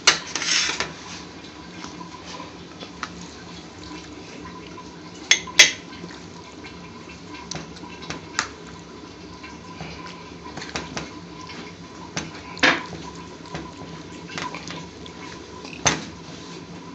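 Scattered clinks and light scrapes of crockery as chutney is served from a ceramic bowl onto a plate. The clinks are a few seconds apart over a faint steady hum.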